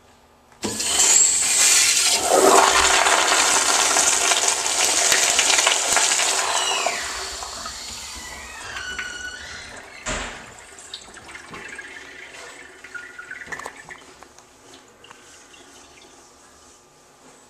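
A Crane toilet bowl flushed by a wall-mounted flushometer valve. A sudden loud rush of water starts about a second in and lasts some six seconds, then gives way to gurgling with falling whistles as the bowl drains. A single knock comes about ten seconds in, then quieter running water fades away as the bowl refills.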